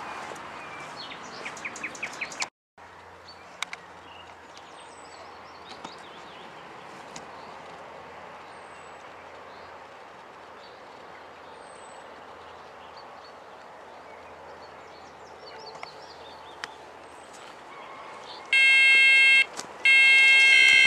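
Outdoor ambience with small birds chirping, then near the end a carp fishing bite alarm sounds a loud steady electronic tone twice, the second time longer, the signal of line being drawn through it. A short run of quick beeps comes about a second in.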